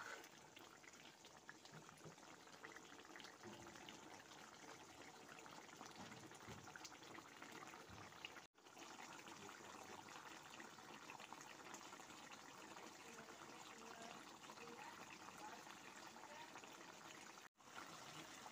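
Faint bubbling and sizzling of a mutton curry simmering in a pan, cutting out briefly twice.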